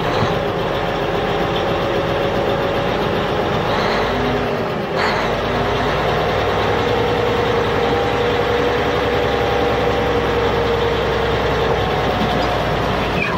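Heavy truck engine running steadily, with a low rumble and faint wavering tones above it; the sound breaks briefly about five seconds in.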